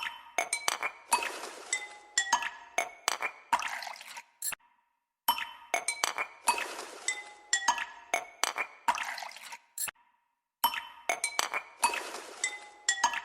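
Background music: a looped phrase of short, bright, chiming struck notes that repeats about every five seconds, with a brief silence between repeats.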